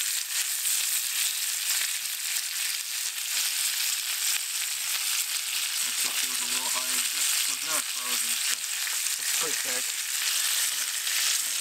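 Ribeye steaks sizzling steadily in butter and garlic in a cast-iron skillet, with a spoon basting them.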